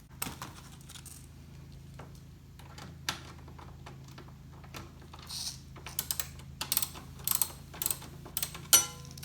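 Irregular metallic clicks and clinks of cap screws and nuts being fitted and tightened, with quick runs of clicks from a 13 mm socket ratchet in the last few seconds.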